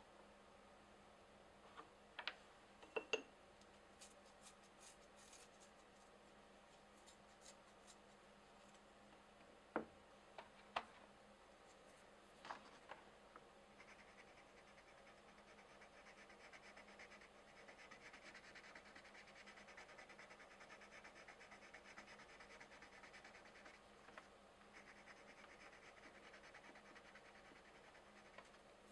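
Faint coloured pencil scratching back and forth on coloring-book paper as an area is shaded in, steady through the second half with a short break near the end. It is preceded by a few light clicks and taps.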